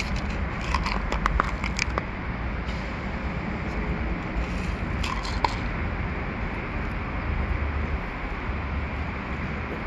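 A few scattered clicks and rattles of dry cat kibble tipped from a plastic cup onto a concrete curb, over steady outdoor background noise with a low rumble.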